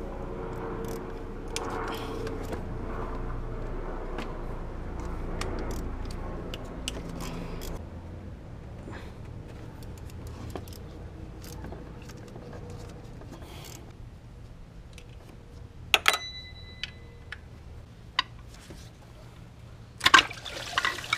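Engine coolant pouring and splashing into a catch pan as the water pump on a Honda J30 V6 is unbolted, with scattered clicks of hand tools. A sharp, ringing metal clink comes about sixteen seconds in.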